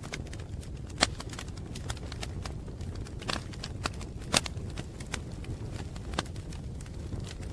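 Wood fire crackling: irregular sharp pops and snaps over a steady low rumble, with louder pops about a second in and again near the middle.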